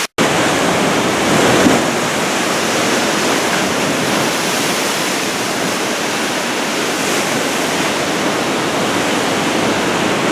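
Heavy ocean surf from a typhoon swell breaking and washing, a steady rush of water, with a brief gap just after the start.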